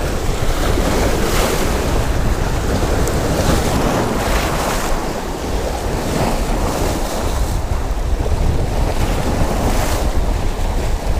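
Strong wind on the microphone over waves washing and splashing against jetty rocks, with louder surges every second or two.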